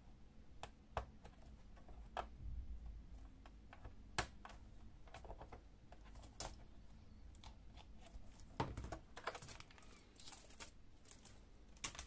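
Irregular light plastic clicks and taps of a tool working the laptop keyboard's ribbon-cable connector latch and the hands handling the keyboard, its keys clicking. There is a busier stretch of clicking and scraping about nine to eleven seconds in.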